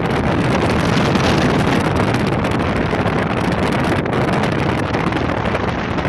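Loud, steady wind noise rushing and buffeting on the microphone.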